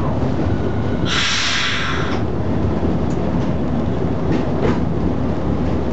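Talbot railcar T44 running along the track, heard from inside the cab: a steady low rumble of engine and wheels. About a second in, a sharp hiss lasts about a second, and a couple of faint clicks from the wheels come later.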